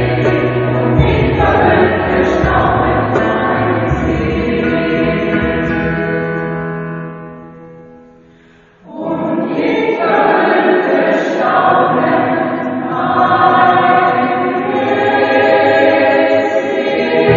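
Mixed choir singing in harmony. A held chord dies away a little past the middle, and after a brief hush the singing comes back in suddenly.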